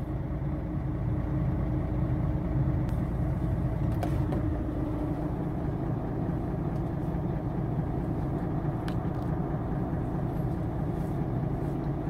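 Mercedes-Benz Actros truck's diesel engine idling steadily, heard from inside the cab, with a few faint clicks.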